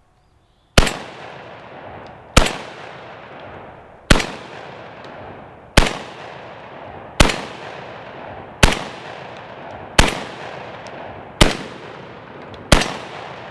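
Krebs Custom VEPR 12 short-barreled semi-automatic 12-gauge shotgun firing nine shots of Remington buckshot at a steady pace, about one every one and a half seconds, each shot trailing off in a ringing echo. The action cycles every round from the SGM 10-round magazine without a stoppage.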